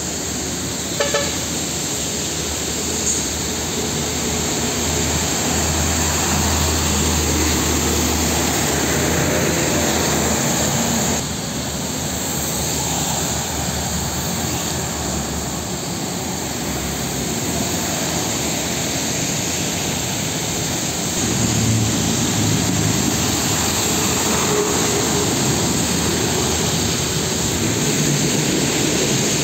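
Heavy road traffic on a wet road: diesel trucks, cars and motorbikes passing, with a steady hiss of tyres on the wet asphalt under the engines' low drone.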